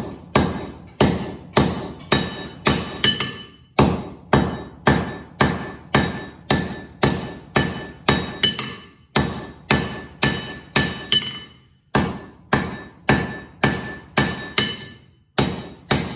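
Hand hammer striking a piece of hot high-carbon steel, an old file, on an anvil, forging it into a flint striker. The blows come about two a second in short runs with brief pauses, each leaving a ringing tone from the anvil.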